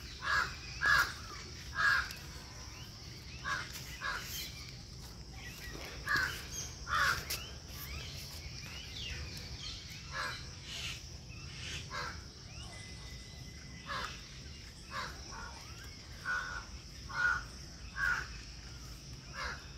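Crows cawing in short harsh calls, often two or three in quick succession, recurring every few seconds over a steady high insect-like drone.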